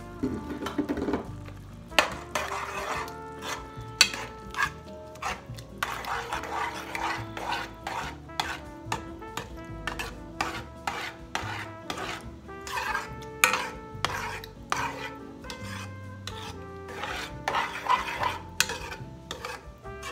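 Metal spoon stirring thick tomato sauce and ground meat in a metal pot, with repeated scrapes and clinks against the pot's sides and bottom.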